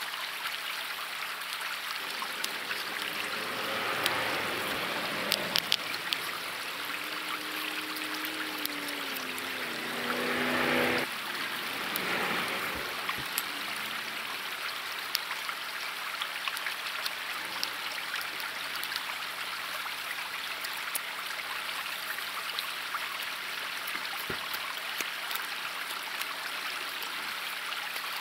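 Steady rush of a fast-flowing river. Between about three and thirteen seconds in, a pitched drone rises and falls over it, growing loudest and cutting off sharply about eleven seconds in. A few sharp clicks come through here and there.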